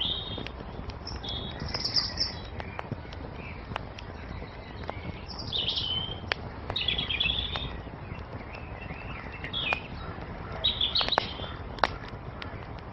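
Songbirds singing in short chirping phrases every second or two, over a wood fire's steady crackle with scattered sharp pops.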